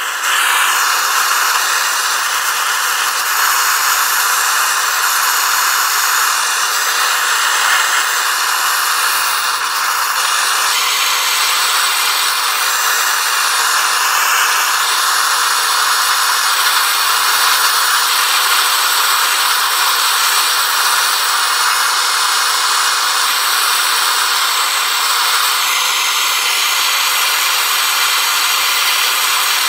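Hose-fed gas torch burning steadily as its flame chars the surface of carved wood.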